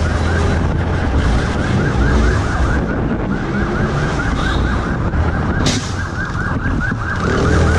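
Police siren in a fast yelp, rising and falling several times a second, over motorcycle engine and wind noise during a pursuit.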